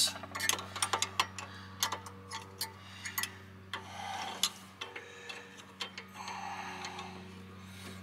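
Irregular small metal clicks and ticks of a brake pad and its steel clips being worked into the disc-brake caliper bracket by hand, thick at first and sparser later. A steady low hum runs underneath.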